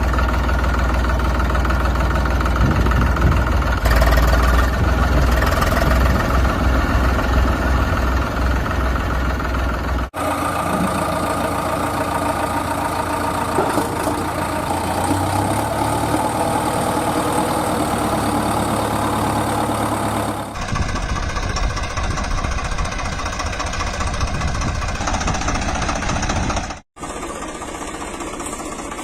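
Heavy vehicle engine idling with a knocking beat, typical of a diesel tractor or truck. It comes in sections that cut off abruptly and change about 10, 20 and 27 seconds in.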